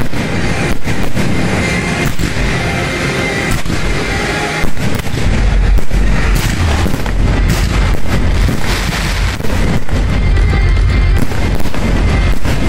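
Aerial fireworks shells bursting one after another, many sharp bangs, over loud music with a heavy bass beat.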